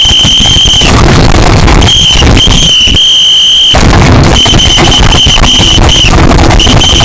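Shrill, steady high-pitched alarm tone blaring in irregular blasts of about a quarter second to a second and a half, about five in all, over loud distorted noise.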